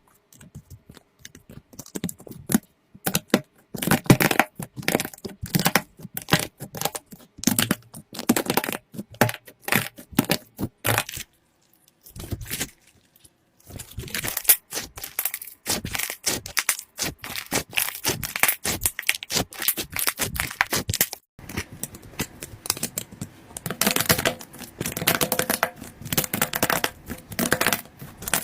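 Slime being squeezed and pressed by hand, giving dense, irregular crackling and popping clicks. It pauses briefly about twelve seconds in.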